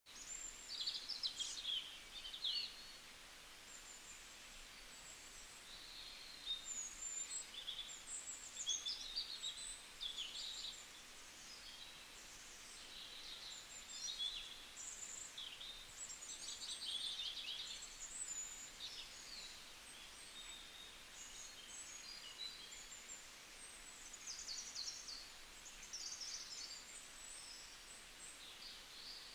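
Small birds chirping and twittering in short, quick calls scattered throughout, over a steady background hiss.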